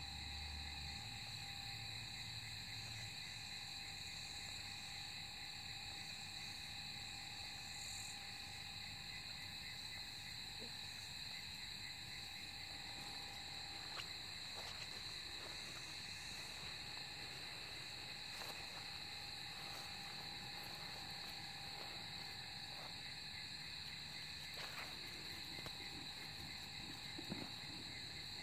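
Night chorus of crickets: several steady high pitches, one of them pulsing rapidly, holding without a break. A few faint clicks fall here and there, the sharpest near the end.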